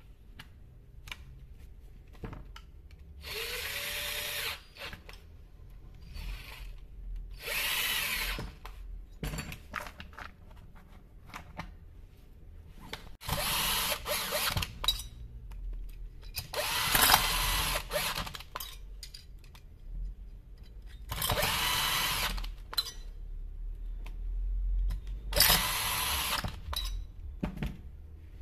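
Power drill running in about six short bursts of a second or so each, spaced a few seconds apart, while a chainsaw's engine is being put back together; the first burst starts with a short rising whine as the motor spins up.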